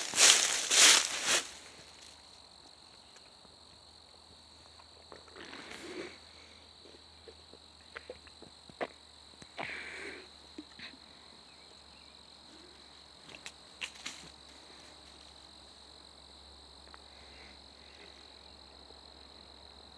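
Footsteps crunching through dry leaves for about the first second and a half. Then a quiet woodland background with a steady high insect drone, broken by a few scattered rustles and twig snaps.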